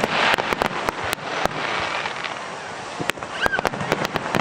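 Aerial fireworks crackling: many sharp pops in quick succession over a steady hiss, with a denser burst just after the start and another cluster about three seconds in.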